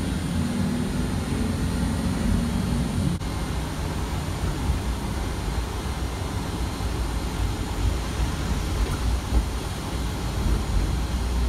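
City bus engine and road rumble, heard from inside the cabin while the bus is moving. A low engine hum stands out for the first three seconds.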